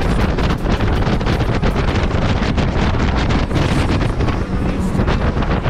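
Heavy wind buffeting the action camera's microphone, a loud, steady gusting roar with rapid flutter, under the low rumble of a boat underway.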